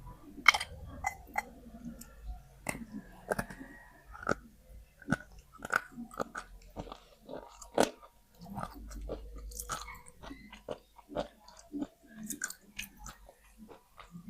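A person biting and chewing wet slate pencils, with irregular sharp crunches a few times a second; the loudest crunch comes about half a second in.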